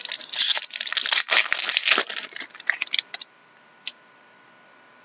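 Foil trading-card pack wrapper crinkling and tearing as it is pulled open and handled. It is loud for about two seconds, then thins out to a few crackles, with a single click a little before the end.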